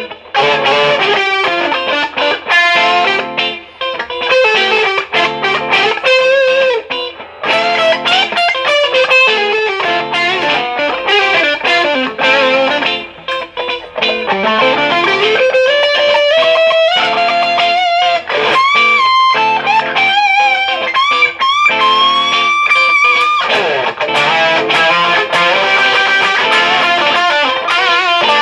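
Gibson R9 Les Paul with Wolfetone Marshallhead pickups, played through a Wampler Tumnus overdrive and a Marshall DSL1 amp. It plays lightly driven lead lines and chords, with string bends and a long slide down and back up the neck about halfway through.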